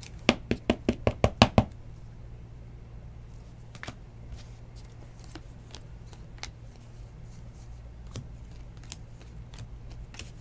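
Baseball trading cards being handled by hand: about nine quick, sharp taps in just over a second near the start, then a few faint scattered clicks as the cards are shuffled through, over a steady low hum.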